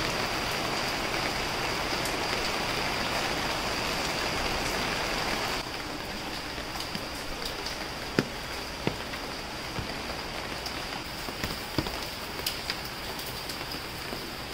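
Heavy rain falling steadily as a dense hiss. About five and a half seconds in it suddenly gets quieter, and scattered sharp taps of drops landing close by stand out above it.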